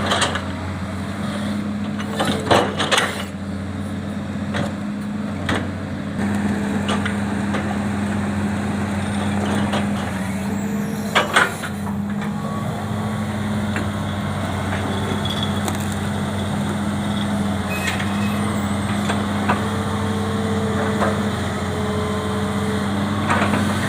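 Excavator's diesel engine running steadily while it works through wood debris, with a few sharp knocks and cracks, the loudest about eleven seconds in.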